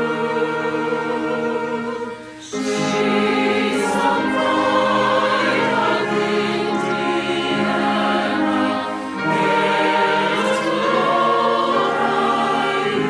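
Choir singing sustained chords with instrumental accompaniment, breaking off briefly about two seconds in and again about nine seconds in.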